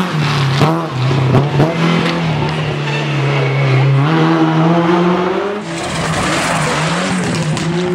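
Rally car engines revving hard at speed, their pitch dropping and climbing again through gear changes. About six seconds in, the sound cuts abruptly to another car accelerating.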